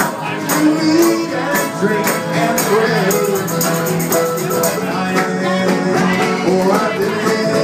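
An acoustic string band playing live: upright bass, accordion and mandolin together, with a steady rhythmic beat of sharp high strokes.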